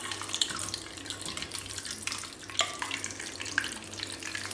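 Bread pressed into a steel katori deep-frying in hot ghee: a steady crackling sizzle full of small pops.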